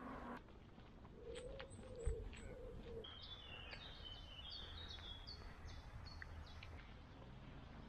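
Birds calling faintly: a low, three-part cooing from about a second in, then a run of high chirping notes repeated for several seconds. A single dull knock sounds about two seconds in.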